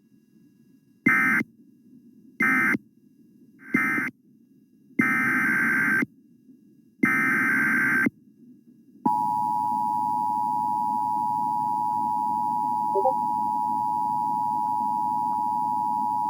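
Emergency Alert System data bursts: five short screeching digital tone bursts, three brief and two about a second long. About nine seconds in, the steady two-tone EAS attention signal begins.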